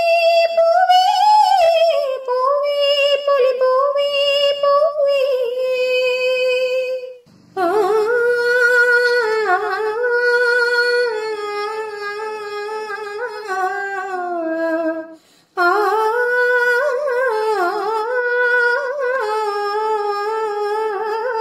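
Music: a single high voice singing a slow wordless melody in three long phrases of held, gliding notes, with short breaks between them.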